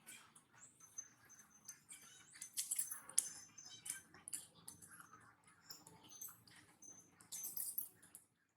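Monkeys giving brief high thin squeaks amid light, irregular pattering and rustling.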